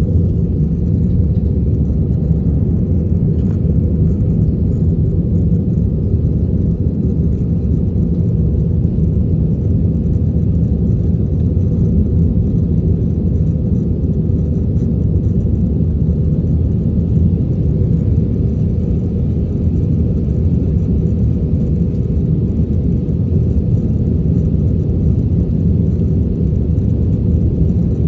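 Steady, deep cabin rumble of an AirAsia Airbus A320 jet airliner in flight: engine and airflow noise heard from inside the passenger cabin.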